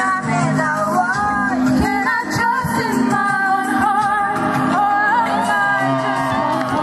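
Live singing into microphones with a steady musical accompaniment, amplified through PA loudspeakers; the sung melody wavers with vibrato above the backing.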